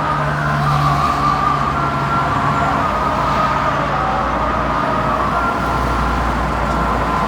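Road traffic: vehicle engines running with a steady rush of road noise and a low engine hum.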